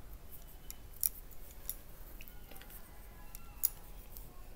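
Metal knitting needles clicking against each other as stitches are worked: a scatter of light clicks, with two sharper ones about a second in and near the end.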